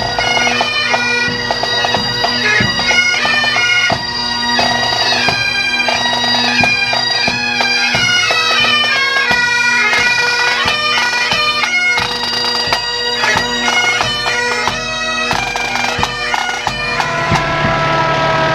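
Bagpipes playing a tune over their steady drones, with regular drumbeats. Near the end the pipes stop and a vehicle siren starts up.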